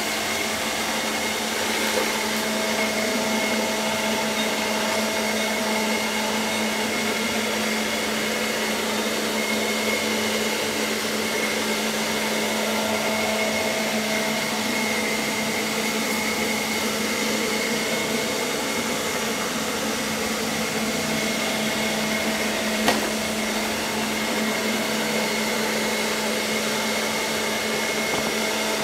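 ILIFE V5S robot vacuum running steadily across a hard floor: a constant motor hum with a high whine over it. One sharp click comes about three-quarters of the way through.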